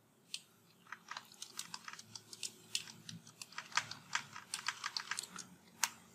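Computer keyboard typing: an uneven run of quick key clicks, with one sharper click near the end.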